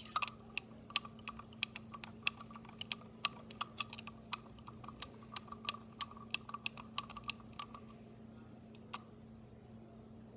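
Calcium chloride pellets rattling inside a glass test tube of water as it is shaken to dissolve them: irregular sharp clicks, several a second, that stop about eight seconds in.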